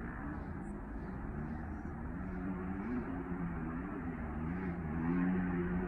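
Dirt-bike engines revving, their pitch rising and falling again and again, loudest near the end.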